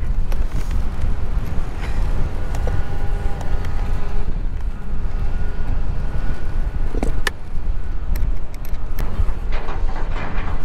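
Wind rumbling on the microphone, with a couple of sharp clicks a little past halfway from wires and tools being handled at the junction box.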